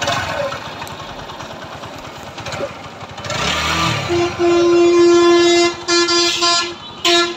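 Freshly repaired TVS 4V motorcycle's single-cylinder engine running, with its timing chain and cam rockers renewed and a wiring short fixed. It is revved once about three seconds in, then the horn sounds in one long blast followed by several short toots, louder than the engine.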